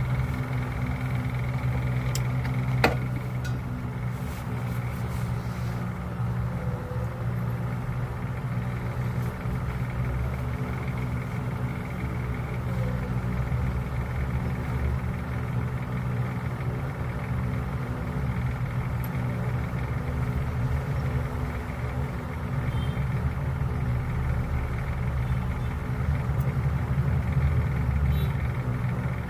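Hot air rework gun's blower running steadily, a constant hum, while it heats a component held in tweezers on a phone circuit board to desolder it. A single sharp click about three seconds in.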